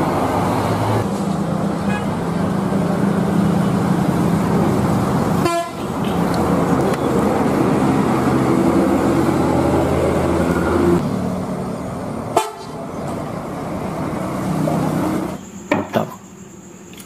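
Large tour coach buses driving past on a street, their engines running and a horn sounding in long steady tones. The sound breaks off twice as one bus gives way to the next. Near the end it drops to a few light clicks.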